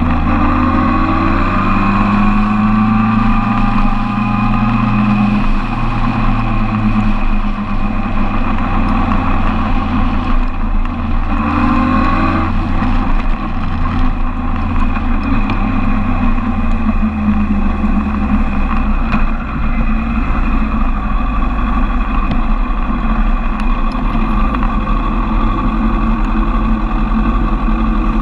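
Suzuki Bandit 1200's inline-four engine running at low speed in traffic. Its pitch rises and falls with throttle and gear changes in the first few seconds and again about twelve seconds in, then holds a steady low note as the bike comes to a stop.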